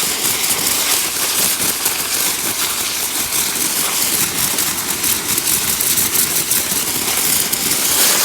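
Pressure washer running with a zero-degree tip, its jet spraying to cut a thistle down to the ground: a loud, steady hiss and spatter of water over the machine's motor.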